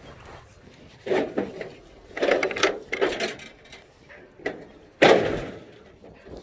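A series of knocks and clattering bangs from hard material being handled: one about a second in, a rattling cluster after two seconds, and the loudest bang about five seconds in, which rings briefly.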